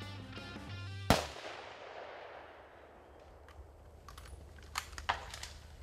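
A single .30-06 rifle shot about a second in, its report echoing and dying away over a couple of seconds. Plucked guitar music stops at the shot, and two sharp snaps come near the end.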